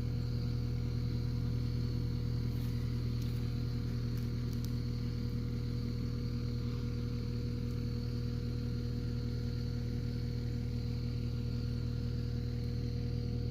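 An engine running steadily at a constant speed, a continuous even hum with no change in pitch.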